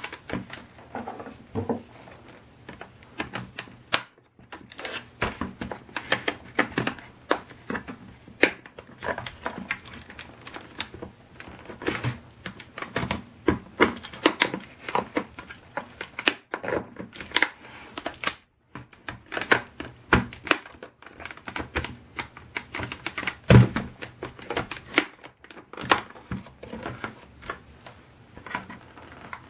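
Plastic parts of a Dyson V6 handheld vacuum clicking and knocking as its clear dust bin and cyclone are handled and pulled apart by hand. Many irregular, sharp clicks throughout, with the loudest knock a little before the end.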